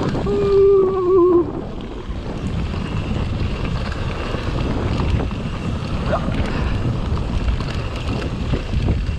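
Wind buffeting the GoPro's microphone over the rumble of a mountain bike being ridden on a trail. A short wavering tone rings out about half a second in, the loudest moment.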